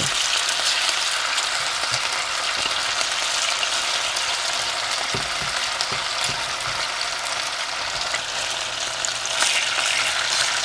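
Marinated boneless chicken pieces being added one at a time to hot oil in a pan, deep-frying with a steady crackling sizzle and a few light knocks.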